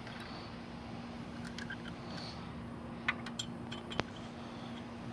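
Faint steady hum with a few light clicks and ticks about three to four seconds in.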